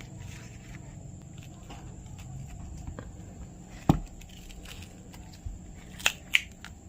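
Small clicks and taps of tools handling an opened smartphone, with one sharp click about four seconds in and two lighter ones near the end, over a low steady hum.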